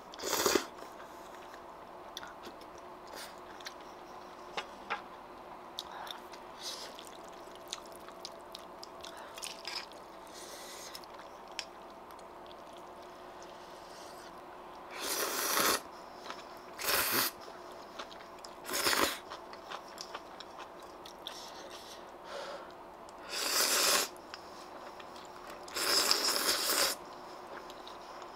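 Close-up eating of kalguksu ramyun noodles: soft chewing clicks, then several loud slurps of noodles in the second half, each lasting half a second to a second.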